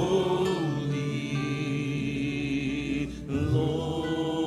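Slow church worship music: sustained keyboard chords, moving to a new chord about three seconds in.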